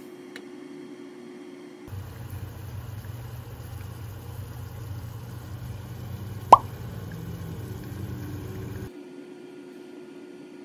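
One sharp plop about six and a half seconds in: a drop of boiled sugar syrup falling into a glass measuring cup of ice water, the test of whether the syrup is ready. Under it, a steady low kitchen hum.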